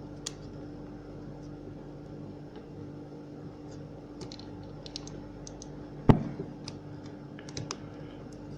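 Small plastic clicks and taps as a hammer drill's plastic cover is fitted back and snapped onto its latches, with one louder knock about six seconds in.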